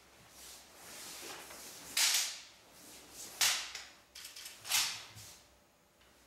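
Japanese swords cutting through the air in a paired iaido kata: three sharp swishes about a second and a half apart, each dying away over about half a second, with a few lighter ones between the second and third.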